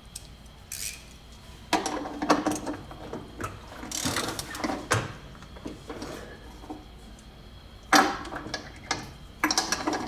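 Socket ratchet clicking in several short bursts as the centre bolt of a Hotpoint washer's agitator is tightened down.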